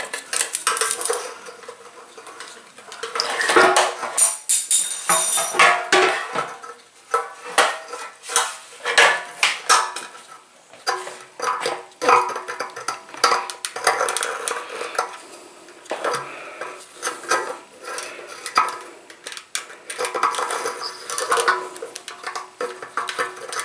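Irregular metallic clinking, tapping and scraping of hand work on a scooter fuel tank, as the fuel-gauge sender is twisted loose and its thin wire float arm is worked out through the tank opening.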